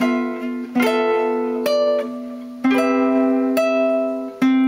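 Nylon-string classical cutaway guitar played fingerstyle in a slow chord-melody passage: a chord or melody note plucked about once a second, each left ringing into the next.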